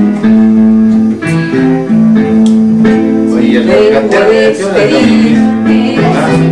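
Live acoustic music: a nylon-string guitar strummed along with an electronic keyboard holding sustained chords. A singing voice comes in about halfway through.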